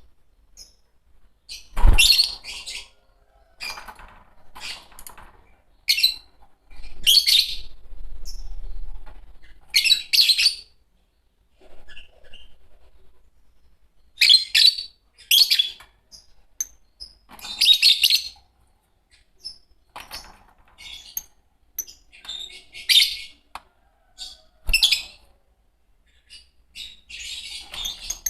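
Fischer's lovebirds giving loud, shrill chirps in short clusters with brief pauses between them. A sharp thump comes about two seconds in and another near the end.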